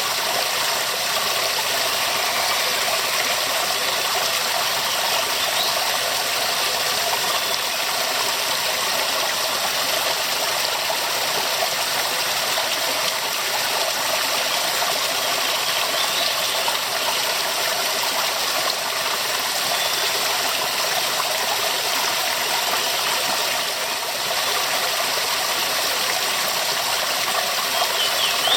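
Waterfall: falling water rushing at a steady level with a bright, hissing texture.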